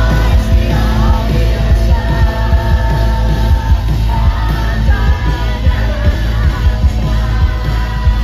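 Live post-punk rock band playing loud: a steady drum beat, distorted guitars and bass, with a man singing lead over them.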